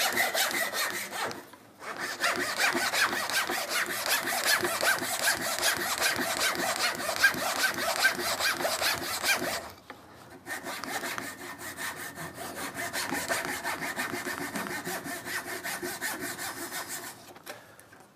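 Japanese pull saw cutting tenon cheeks in a small wooden block: quick, even strokes in three runs, with short pauses about a second and a half in and again about ten seconds in.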